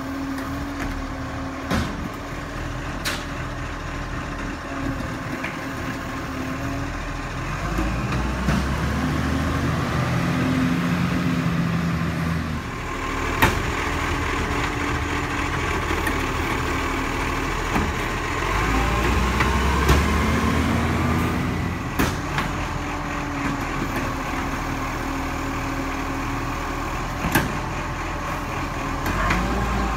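Side-loader garbage truck with a Richards Compactor body: the diesel engine idles, then revs up twice with a gliding whine as the hydraulic arm lifts and tips a wheelie bin. Several sharp knocks of the bin and arm ring out along the way.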